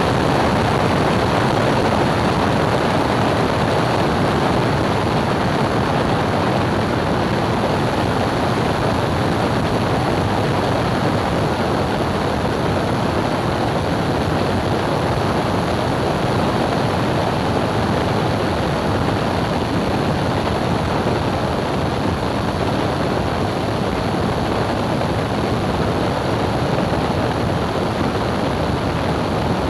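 Light aircraft in cruise flight: a steady rush of engine, propeller and airflow noise that holds even throughout, with no clear engine tone standing out.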